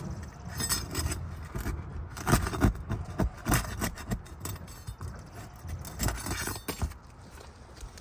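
A roofing tool scraping and prying under tightly sealed shingles, with irregular scrapes and clicks as the brittle shingle crumbles and tears.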